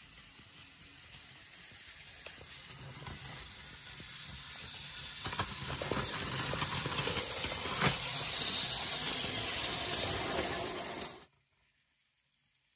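Battery-powered counterfeit TrackMaster Charlie toy engine running along plastic track: a steady whirring hiss that grows louder as it comes closer, with a few sharp clicks. The sound cuts off suddenly near the end.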